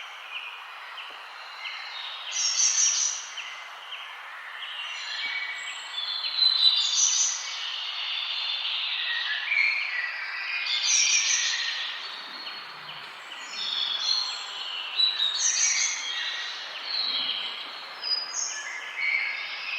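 Several forest birds singing and chirping, with one short high phrase repeated about every four seconds, over a steady background hiss.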